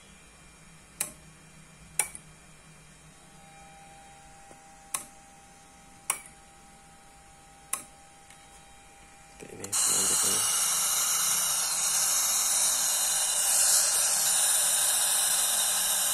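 Modified Icom IC-2N two-metre transceiver with a MOSFET booster: five sharp clicks, then about ten seconds in a loud, steady hiss of open-squelch receiver static from its speaker starts suddenly.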